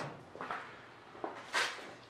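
Handling knocks and taps against a thin aluminium wing skin: four or five short knocks, the loudest about one and a half seconds in.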